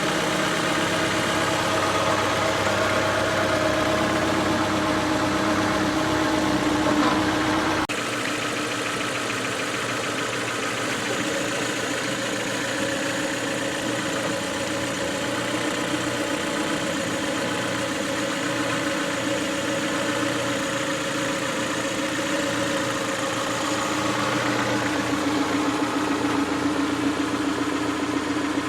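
Car engine running steadily at low speed, with an abrupt cut about eight seconds in where the hum shifts slightly in pitch.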